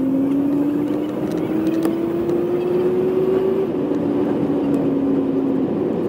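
Bus engine and road noise heard from inside the moving bus. The engine's drone rises slowly in pitch as the bus accelerates, breaks off about three and a half seconds in, and comes back lower, as at a gear change.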